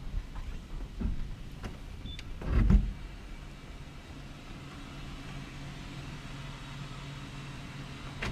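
A light knock about a second in, then a louder, heavy thump about two and a half seconds in, followed by a steady low hum.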